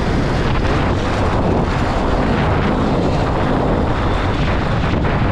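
Enduro dirt bike engine running steadily on the move, with wind rush on the microphone.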